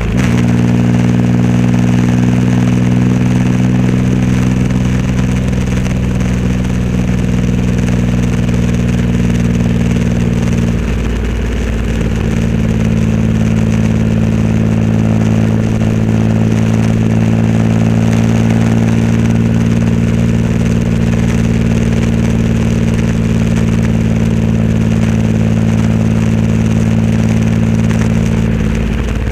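Triumph Rocket 3 Roadster's 2.3-litre inline-three running through a custom exhaust, holding steady engine speed while riding. The engine note breaks briefly about a third of the way in, then settles again, and eases off near the end.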